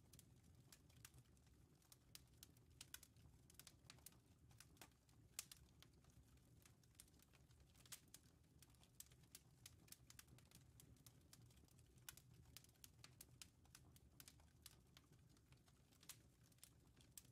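Near silence: faint, irregular crackling clicks, several a second, over a low hum.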